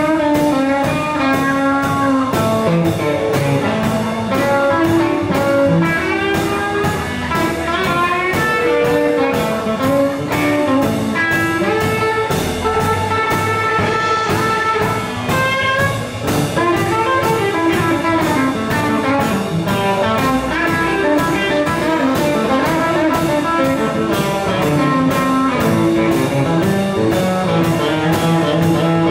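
Live band playing an instrumental passage: electric guitar over bass and drums, with a steady beat.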